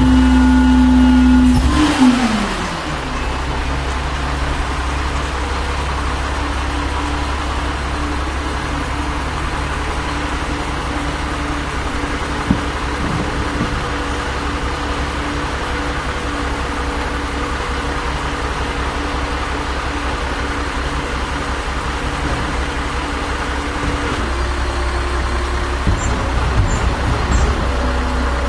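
1996 Volvo WX64 garbage truck's diesel engine held at high revs, then dropping quickly to a steady idle about two seconds in. Near the end the idle note steps up a little, with a few light knocks.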